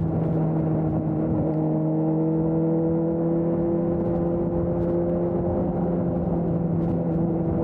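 Suzuki GSX-S750's inline-four engine with an aftermarket Storm exhaust, running at a steady throttle while riding. The note wavers briefly near the start, then holds an even drone over a low wind and road rumble.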